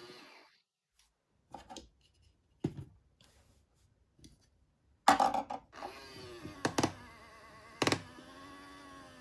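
Plastic toy cash register being handled: a few knocks and clicks, then a loud knock about five seconds in. After that the small motor of the toy's conveyor belt runs with a wavering whine for about four seconds, broken by a couple of sharp clicks.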